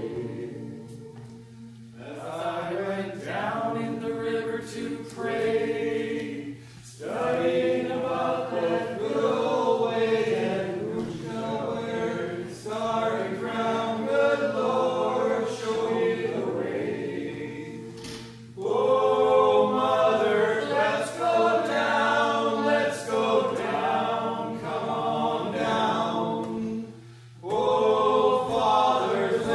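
A small group of voices singing together a cappella, in long phrases with brief pauses between them.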